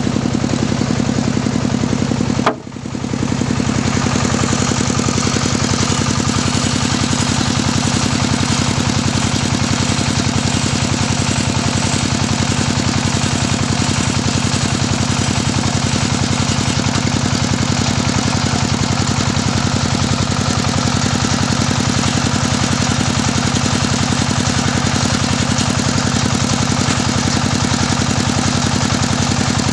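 Engine of a portable circular sawmill running steadily and unloaded, spinning the saw blade with no timber in the cut. The sound drops out briefly about two and a half seconds in.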